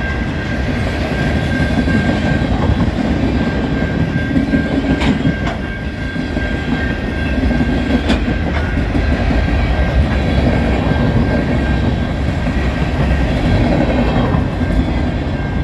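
Freight train's cars rolling past at speed over a level crossing: a steady wheel rumble with the clickety-clack of wheels over the rail joints. A steady high tone sits over it.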